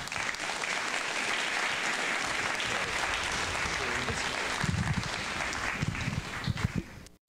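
Audience applauding steadily, with a few voices calling out among the clapping; it cuts off suddenly near the end.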